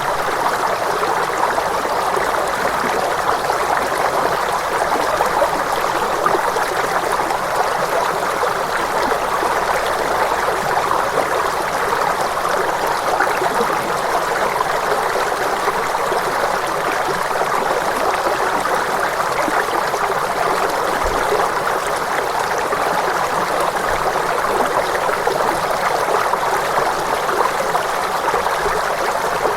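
Flowing water, like a stream, rushing steadily without a break.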